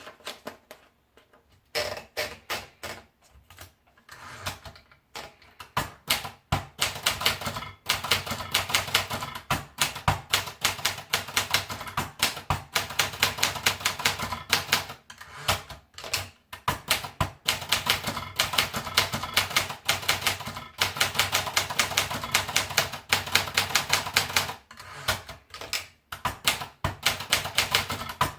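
Olympia Splendid 33 manual portable typewriter being typed on: a fast, steady run of key strikes that starts about two seconds in, broken by a few short pauses.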